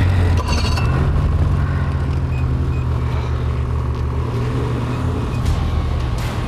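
Ski-Doo snowmobile engines starting up and running steadily, their pitch rising about a second in as one sled pulls away through the snow.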